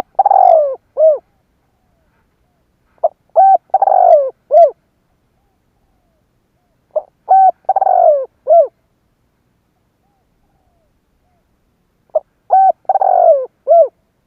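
Spotted dove cooing: four phrases, about one every four seconds, each a couple of short coos, a longer falling coo and a short final note.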